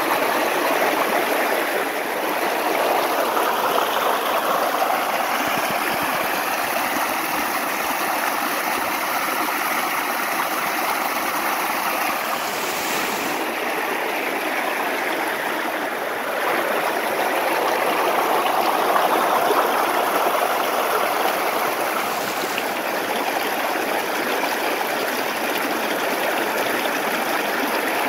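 Stream water flowing, a steady, even rush of running water.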